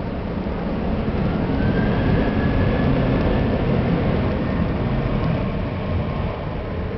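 Jet engines of airliners taxiing: a steady, dense rumble with a faint whine that rises about a second and a half in.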